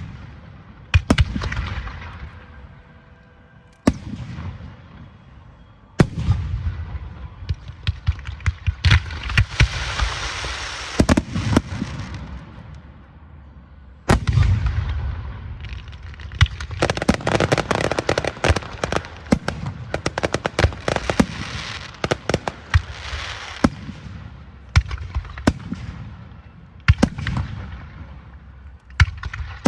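Fireworks going off: a string of sharp bangs, with two long stretches of dense crackling, one about nine seconds in and a longer one from about sixteen to twenty-three seconds.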